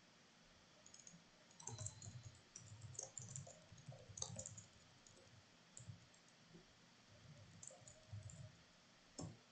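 Faint computer keyboard typing and mouse clicks: a run of quick keystrokes starting about a second and a half in, then scattered single clicks, with one last click near the end.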